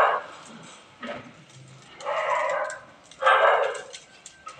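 A dog barking a few times, each bark about half a second long, over the light crackling of a burning straw pile.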